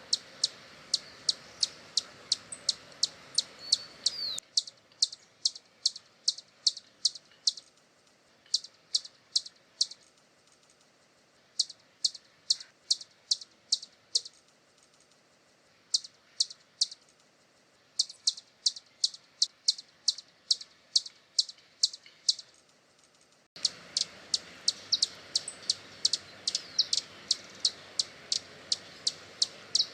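Hummingbird giving rapid, sharp, high-pitched chip calls, about three to four a second, in bouts separated by short pauses.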